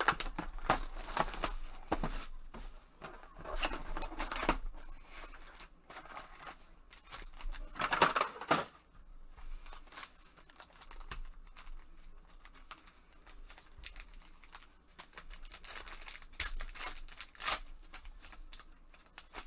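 Foil trading-card pack wrappers being torn open and crinkled by gloved hands, in repeated bursts of rustling and tearing, the loudest about eight seconds in.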